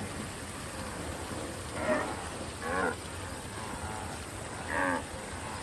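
Blue wildebeest calling: three short calls with a falling pitch, spaced a second or two apart, over a steady background hiss.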